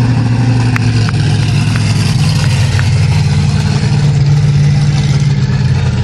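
Bigfoot monster truck's engine running loud as the truck drives past, its note rising a little partway through.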